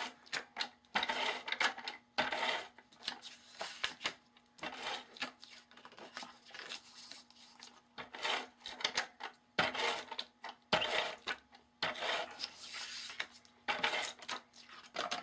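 ATG adhesive tape gun run in a series of short strokes along the edges of a sheet of white cardstock, laying down double-sided adhesive.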